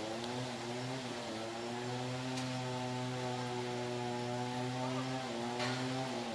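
An engine running steadily at a nearly constant pitch, with a few faint clicks.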